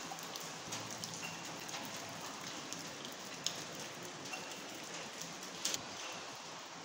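Water dripping and splashing into puddles on a flooded concrete floor: a steady patter with a few sharper single drips.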